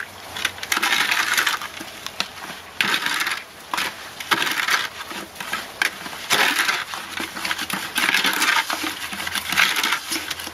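A trowel scraping and stirring wet sand-and-Portland-cement stucco mix in a plastic bucket, in repeated strokes about one a second, with sharp clicks where the blade hits the bucket wall. This is the mixing of water into the dry-blended sand and cement.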